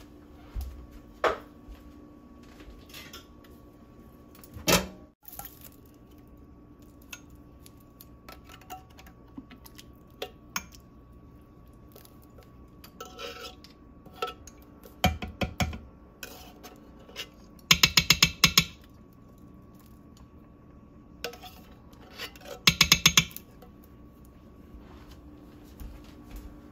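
Kitchen utensils knocking and clinking against a cooking pot, with scattered single taps and two loud bursts of rapid metal tapping, each about a second long, past the middle and near the end.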